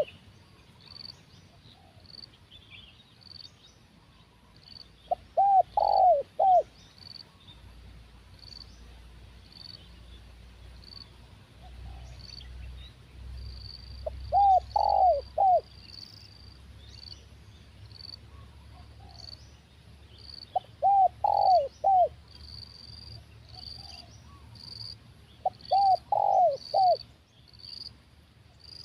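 Spotted dove cooing: four phrases of three or four quick coos each, spaced about six seconds apart. A steady high chirping repeats about twice a second under the coos.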